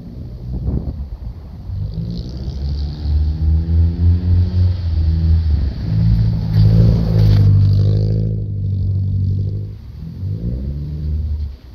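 Nissan 240SX S14 engine revving hard, its pitch climbing and falling several times. It is loudest about two-thirds of the way through, then drops back briefly before revving again.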